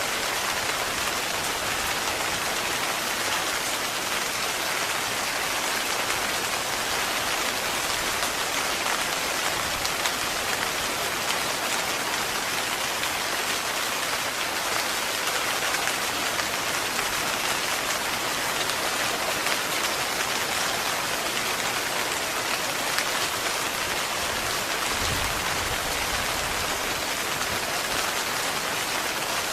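Heavy rain falling steadily on a tent, a dense even patter without a break. A brief low rumble comes near the end.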